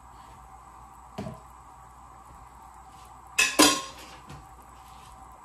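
Cookware and utensils clattering: a light knock about a second in, then a louder metallic clatter of two or three quick strikes a little past the middle, over a steady background hum.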